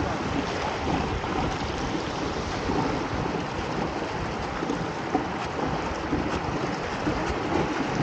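Water rushing and splashing steadily along a fishing kayak's hull as it moves at speed, with wind on the microphone.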